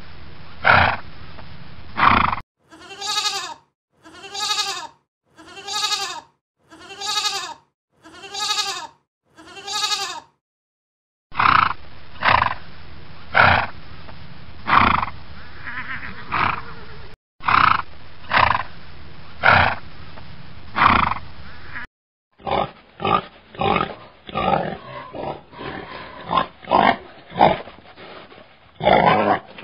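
A sequence of farm animal calls: sheep bleating at the start, then six evenly spaced calls about a second and a half apart, then a flock of sheep bleating about once a second. From about 22 seconds in, a pig grunting in many short calls.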